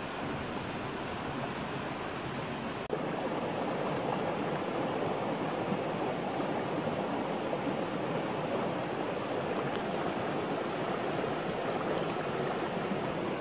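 Steady rush of a flowing stream, with a brief drop about three seconds in, after which it runs a little louder.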